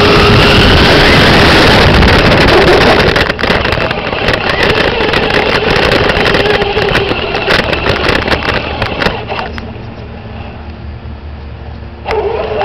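Traxxas Stampede VXL brushless RC truck driving, heard from a camera mounted on it: a loud rush of wind and tyre noise with many small ticks and knocks from the ground, and the electric motor's whine rising briefly at the start. The noise drops lower about ten seconds in and picks up again just before the end.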